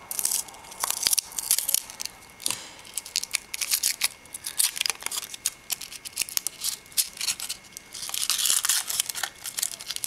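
Foil wrapper being torn and peeled off a Yowie chocolate, crinkling and crackling in quick irregular runs. The crinkling is busiest about eight seconds in.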